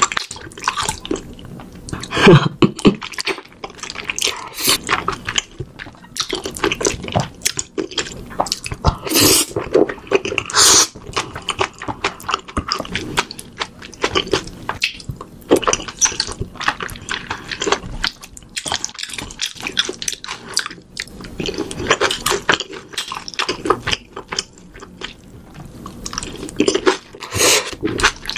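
Close-miked, wet chewing and lip-smacking of a sauce-coated meat dish, with many short sticky clicks and smacks coming at an uneven pace.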